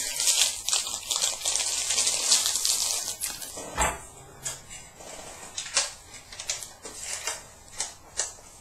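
Plastic packaging crinkling and rustling for about three seconds, then scattered sharp clicks and knocks from plastic parts being handled.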